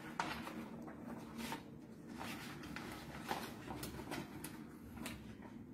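Scattered light clicks, taps and rustling of hands working at the heating plate inside a PVC window welding machine, fitting its non-stick cover sheet, over a faint steady hum.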